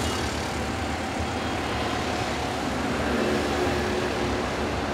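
Steady background road-traffic noise, an even rumble of passing vehicles.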